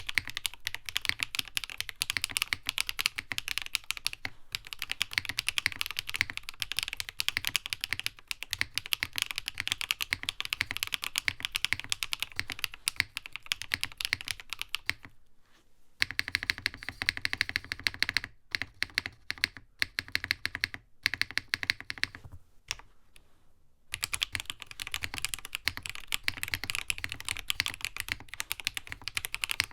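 Fast typing on a NovelKeys Classic TKL mechanical keyboard: a dense, continuous run of keystrokes, each a short clack. The typing breaks off briefly about halfway through, runs on more sparsely for a few seconds, pauses again, then picks back up at full speed.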